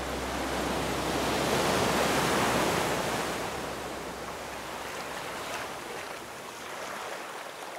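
Ocean surf washing: a rush of water sound swells to its loudest about two seconds in, then slowly fades away.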